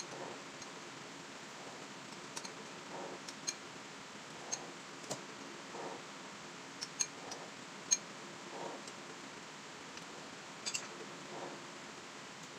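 A metal spoon clinking against a ceramic bowl while eating: about eight short, light clinks at uneven intervals over a faint steady hiss.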